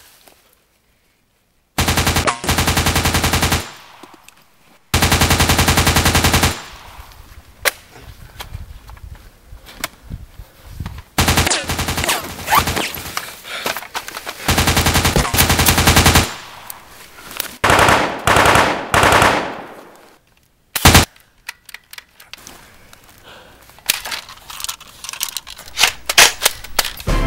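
Bursts of rapid automatic gunfire, each a second or two long, with single shots between them: dubbed-in gunfire sound effects standing in for the airsoft guns.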